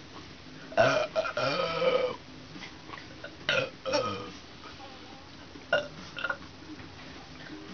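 A person burping after gulping carbonated diet soda. One long, loud, drawn-out burp comes about a second in, then two shorter burps around three and a half and four seconds, and two fainter ones near six seconds.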